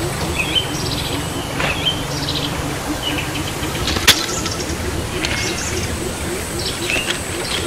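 Birds chirping in short calls over a steady low rumble, with one sharp knock or crack about four seconds in.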